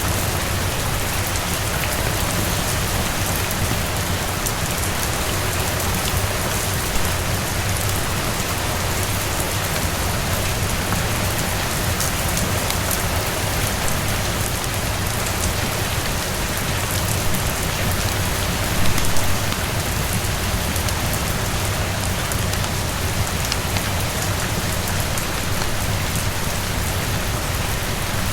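Steady rain falling, an even hiss with scattered sharp ticks, and a brief louder swell about two-thirds of the way through.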